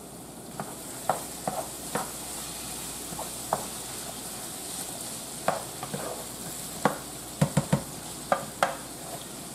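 Ground beef, sausage, onion and bell pepper sizzling in a skillet while a spatula stirs them, with a dozen or so sharp clicks and scrapes of the spatula against the pan, most of them in the second half.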